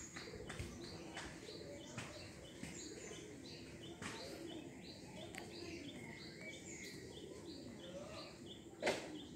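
A small bird chirping a short high note over and over, about twice a second, over soft low cooing from domestic pigeons. A single sharp thump sounds near the end.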